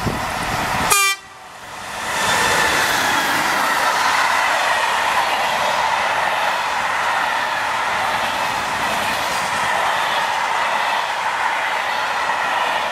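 SNCF BB 27000 electric freight locomotive and its long rake of covered freight wagons rolling past close by: a steady rush of steel wheels on rail with a sustained ringing tone. A brief sharp sound comes about a second in; the level dips, then builds back up as the wagons pass.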